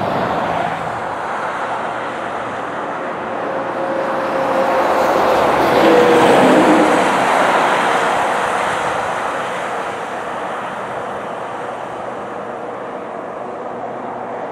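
Canadian Pacific diesel locomotive running as the train approaches, a steady rumble with a faint held tone. The sound swells to its loudest about six seconds in, then eases back to a steady level.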